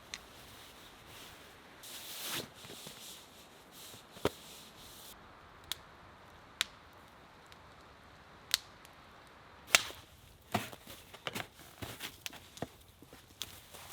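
Wood campfire crackling, with scattered sharp pops over a faint hiss that come more thickly near the end.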